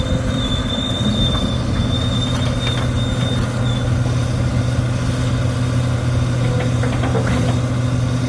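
Komatsu PC300LC-7 excavator's diesel engine running steadily as the machine travels on its crawler tracks, with a thin high squeal that stops about three and a half seconds in and a few faint clanks from the undercarriage.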